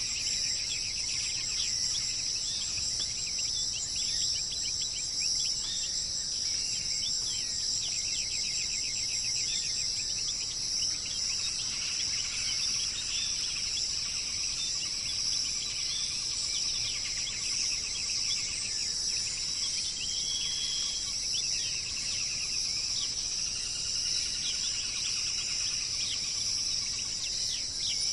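Steady high-pitched insect drone with many birds chirping and trilling over it.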